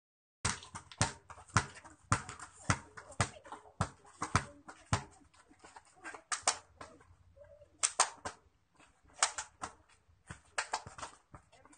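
A volleyball being struck over and over in ball-control juggling: sharp slaps about twice a second, then fewer, irregular hits, some in quick pairs, after about five seconds.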